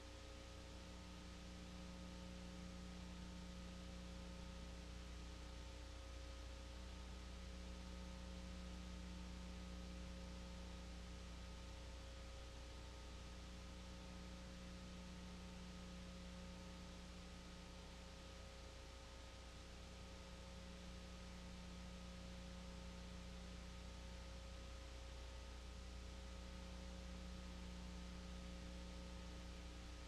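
Dead air from a silent Emergency Alert System activation: a faint steady electrical hum and hiss, with no alert tones and no voice. The lowest part of the hum briefly drops out every few seconds.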